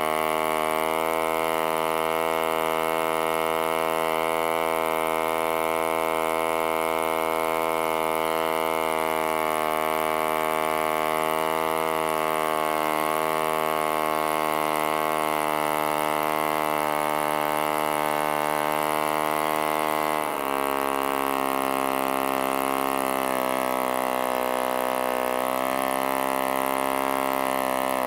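1947 HP Series I 3.5cc spark-ignition model engine running steadily with its propeller spinning, a constant high buzzing note. About twenty seconds in its speed drops slightly and it carries on steadily at the lower pitch.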